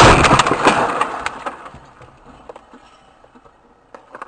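A car crashing right beside the dashcam car: a loud crash with a dense clatter of debris and spray striking the windshield and body, dying away over about two seconds. A couple of small sharp clicks follow near the end.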